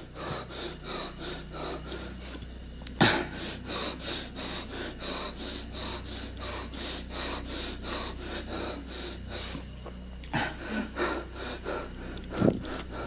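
A man breathing hard and fast close to the microphone in quick, even breaths. There is a sharp knock about three seconds in and a couple of thumps near the end.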